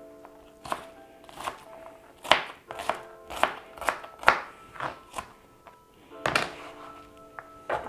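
Kitchen knife chopping a red onion on a cutting board: about a dozen sharp, uneven knocks, one or two a second, with a short pause about five and a half seconds in. Background music with held notes underneath.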